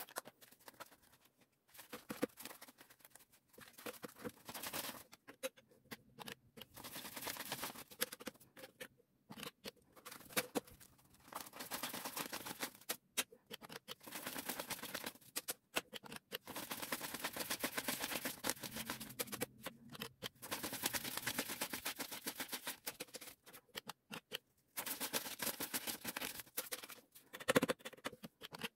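Paper banknotes (Korean 1,000-won notes) rustling and flicking as they are counted and fanned out by hand, in repeated runs with short pauses. A louder tap comes near the end.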